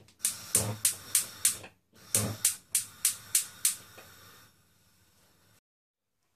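Sharp clicks from the gas hob's control knobs, two quick runs of five or six clicks at about three a second, then a faint fading hiss.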